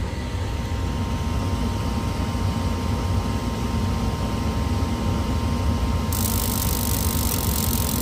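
Gas package unit's draft inducer motor running with a steady hum and a faint whine, as the furnace goes through its start-up before the burners light. A steady hiss joins about six seconds in.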